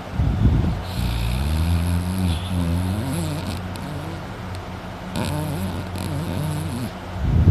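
A sleeping man snoring loudly, with a rough rattling snore just after the start and another at the end. In between there is a softer wavering, pitched breath sound over a steady low hum.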